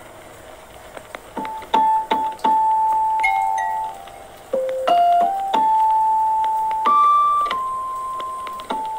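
Background music: a slow, sparse keyboard melody of single held notes, each struck and then sustained before the next.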